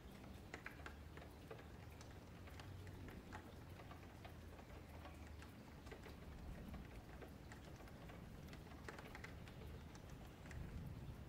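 Faint, irregular clicks of a computer mouse and keyboard over a low steady hum, near silence.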